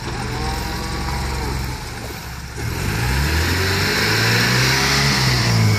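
1983 Toyota pickup engine revving hard while the truck is stuck in mud and trying to drive out. The revs and loudness drop about two seconds in, then climb again and rise and fall.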